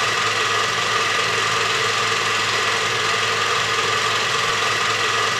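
Steady machine-like hum over an even hiss, with a few constant high tones held throughout and no change in level.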